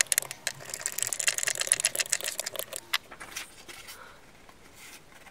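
Hand screwdriver driving a small screw through a metal keyhole hanger plate into wood: a fast run of clicks and ticks that stops about three seconds in. Faint paper rustling follows.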